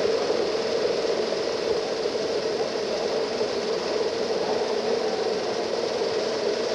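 Steady mechanical din of a running 1913 Allis-Chalmers vertical triple-expansion steam pumping engine, under an even hiss, with no single knock or beat standing out.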